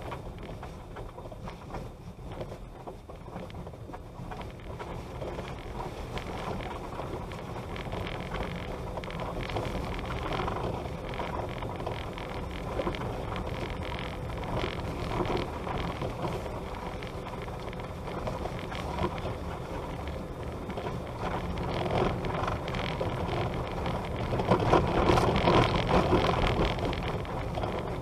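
A vehicle driving slowly over a rough dirt road: a steady low rumble with the crackle and crunch of tyres on dirt and loose stones, louder for a few seconds near the end.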